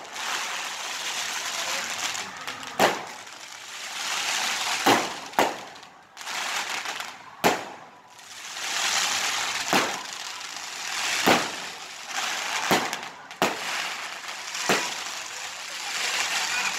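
Aerial fireworks bursting overhead: about ten sharp bangs, one every second or two, with crackling sparks that swell and fade between them.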